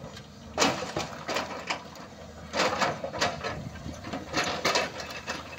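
Excavator-mounted hydraulic rock breaker hammering on rock in several short bursts of rapid, sharp blows, over the excavator engine's steady low running.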